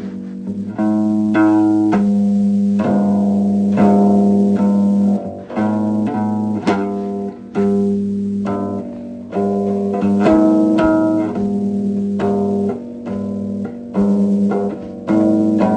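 Instrumental music without voice: sustained pitched notes over a low bass line, with a new note or chord struck about every second.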